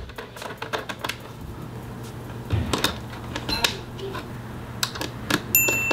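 Small, irregular metal clicks and ticks as tiny screws are set into a metal bracket and turned with a precision screwdriver. A steady high beep starts near the end.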